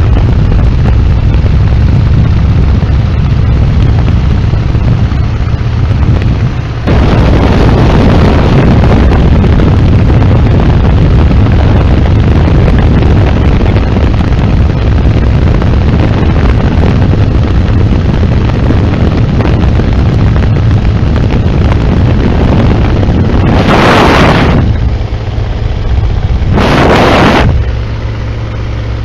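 Biplane engine and propeller slipstream in an open cockpit, with loud wind blasting the microphone. Two short, louder rushes of wind come near the end, after which the steady drone of the engine comes through more clearly.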